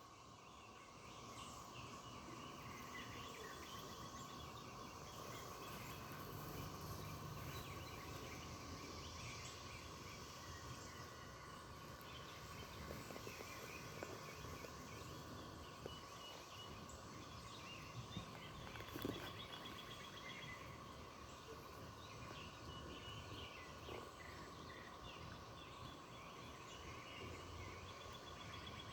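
Faint outdoor ambience: scattered bird chirps over a steady background drone, with a few soft knocks.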